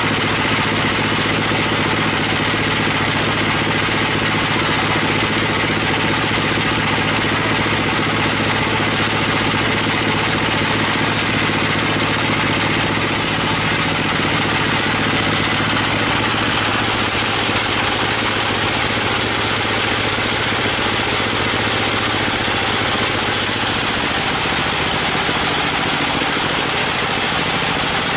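Sawmill machinery running steadily with an engine-like drone and a constant hiss, the high hiss changing a little about halfway through.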